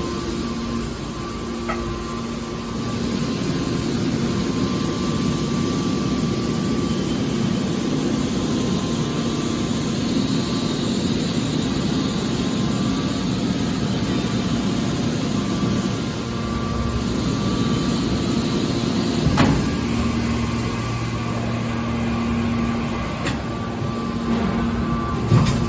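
Scrap metal baler machinery running with a steady hum, with two sharp metallic knocks, one about two-thirds of the way through and one near the end.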